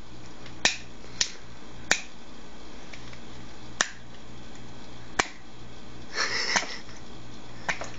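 A baby making sharp mouth clicks, about six spaced irregularly, with a short breathy sound about six seconds in.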